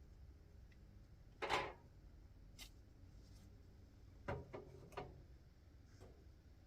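A few short knocks and clatters of objects being handled: a louder, slightly drawn-out clatter about a second and a half in, a light tap a second later, then three quick knocks between about four and five seconds in.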